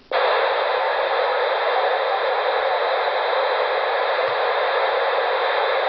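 Steady hiss of band noise from an amateur radio HF transceiver on single sideband, coming in suddenly just after the start. The receiver is open on a frequency where nobody is transmitting.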